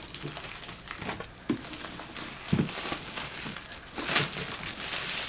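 Plastic wrapping crinkling and rustling as it is pulled off a cardboard power-supply box, with a few soft knocks from handling the box.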